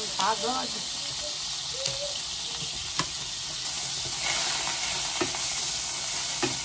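Butter and cooking oil sizzling in a frying pan, with a steady hiss, as a wooden spatula stirs them and taps the pan a few times.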